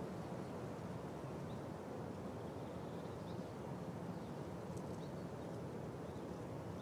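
Outdoor ambience: a steady low rumbling noise with a few faint, short bird chirps scattered through it.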